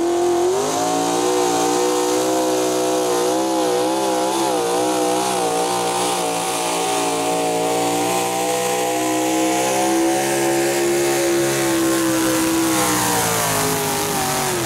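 Super Stock two-wheel-drive pulling truck's engine at full throttle, dragging a weight-transfer sled. Its high, steady note wavers up and down as the truck hops along the track, then falls in pitch near the end as the engine slows.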